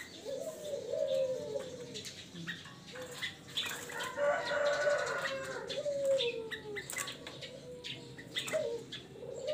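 Caged puter doves (barbary/ringneck doves) cooing over and over in low phrases, over a busy morning chorus of short chirps from other songbirds. A rooster crows about four seconds in.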